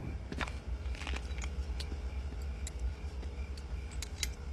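Gas pump dispensing fuel: a steady low hum with faint scattered light clicks and rattles from the nozzle and hose.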